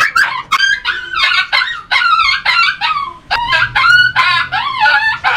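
A flock of poultry calling loudly, many overlapping calls several a second.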